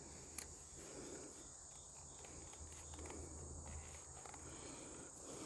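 Steady high-pitched insect drone, with a single sharp click about half a second in and faint rustling.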